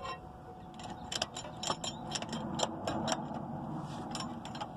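An irregular series of sharp metallic clicks and clinks from tire-changing tools at work, about three to four a second, starting about a second in.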